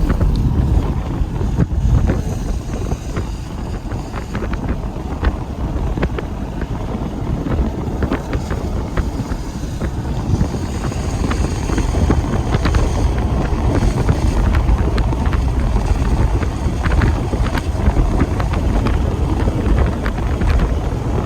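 Strong wind buffeting the microphone: a loud, continuous low rumble with scattered clicks and taps.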